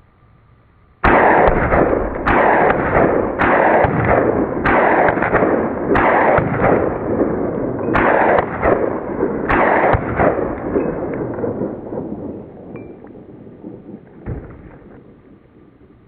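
Marlin Model 60 semi-automatic .22 LR rifle firing a quick string of about a dozen shots, beginning about a second in and thinning out after about ten seconds, with one fainter shot near the end.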